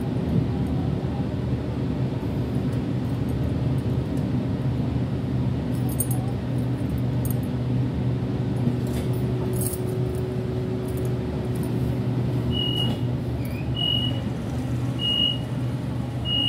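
Steady low hum inside a Waratah electric suburban train. From about three-quarters of the way through, a short high electronic beep repeats roughly every second and a bit: the train's door warning chime.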